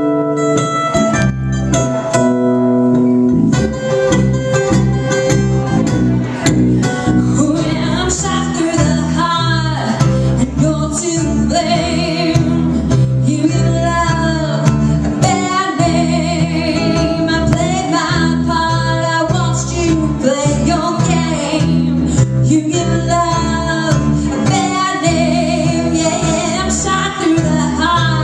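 Band music with guitar, and singing that comes in about eight seconds in.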